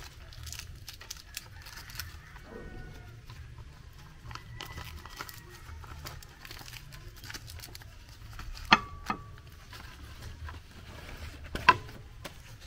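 Large fresh green leaves rustling and crinkling as they are folded by hand around portions of cocoyam fufu, with scattered small crackles and two sharp knocks about three seconds apart in the second half.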